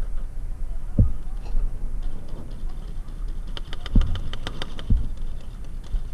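Paintball markers firing, a quick string of faint sharp pops in the second half, over a steady low rumble with three dull thumps.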